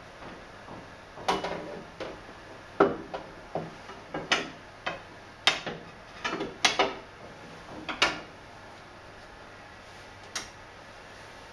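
Irregular knocks and clicks of hands handling the plastic feed table and cover of a roll laminator while a stiff card is set in place, about ten sharp knocks in all.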